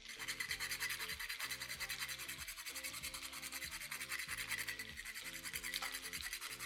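Whole nutmeg rasped on a fine hand grater in quick, steady strokes, over background music.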